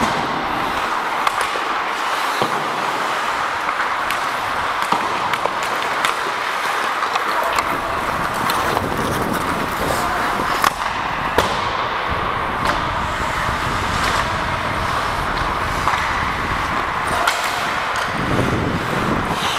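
Ice hockey play heard from a referee's helmet-mounted microphone: a continuous scrape of skate blades on ice with scattered sharp clacks of sticks and puck. A low rumble joins about eight seconds in.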